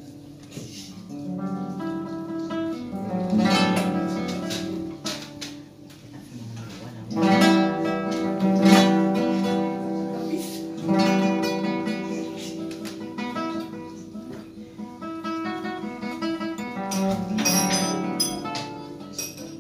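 Solo classical guitar played fingerstyle: plucked melody notes and chords ringing out, with a flurry of quick strummed chords near the end.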